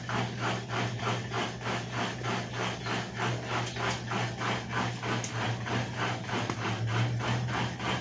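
EASY 17 kg top-load washing machine on its spin cycle, failing to spin: the motor hums steadily under a rhythmic rasping rub that repeats about three times a second. The motor sounds bound up ('amarrado'), the sign of a motor rusted inside.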